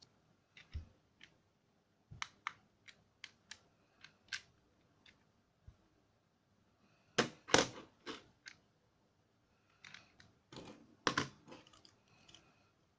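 Small plastic toy pieces and packaging being handled: scattered sharp clicks and light clatter, with louder clusters of clicking about seven seconds in and again about eleven seconds in.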